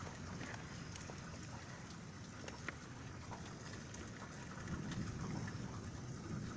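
Steady rain falling, with scattered ticks of drops hitting nearby surfaces. A low rumble of distant thunder swells about two-thirds of the way through.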